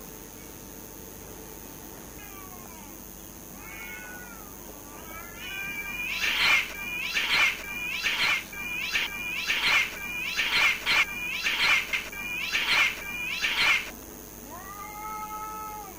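Two cats caterwauling in a fight. Faint low yowls build into a rapid run of about ten loud yowls as the cats clash. One long drawn-out yowl comes near the end.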